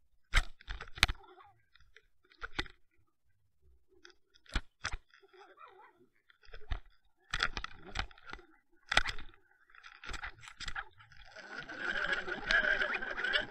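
Sharp knocks, clicks and scrapes picked up through an underwater camera housing on the fishing line, as a hooked pike fights and jerks the line. About two seconds before the end they give way to a dense crackling, rushing noise.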